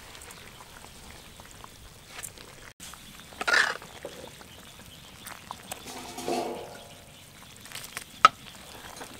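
Metal ladle stirring a large wok of soup and greens, with the liquid sloshing. A louder slosh comes about three and a half seconds in, a short pitched sound about six seconds in, and a sharp knock near the end.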